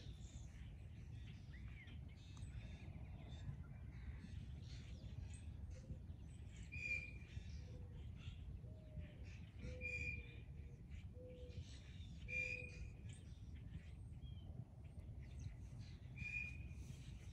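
Wild birds calling in spring: short clear whistled notes repeat every few seconds, among lower short notes and scattered chips. A steady low rumble runs underneath.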